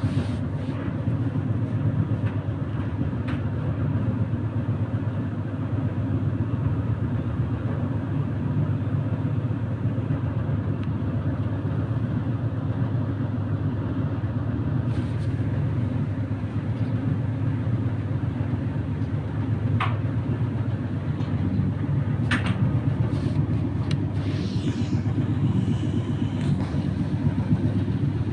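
Indesit tumble dryer running: a steady low hum and rumble from the turning drum and motor, with a couple of short sharp clicks about two thirds of the way in.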